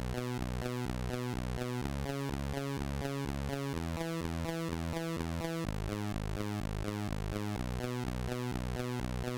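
Electronic background music with a synthesizer melody over a steady pulsing bass beat.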